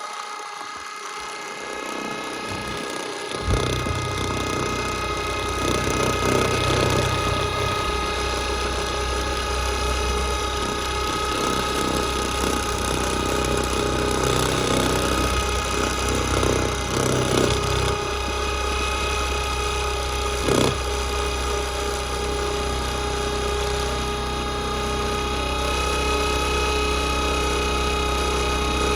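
Motor of a toy washing machine modified for high speed, running with a steady whine. A deeper rumble sets in about three and a half seconds in, with a few short knocks and rattles.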